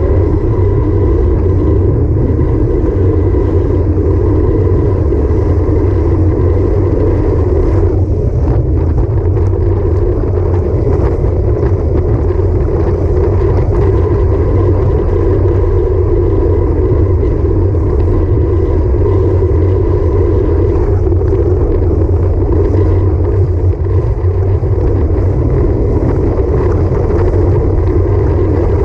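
Wind rushing over a handlebar-mounted action camera's microphone on a road bike at speed, with tyre noise on the road, a steady loud rumble. A faint steady whine sits underneath.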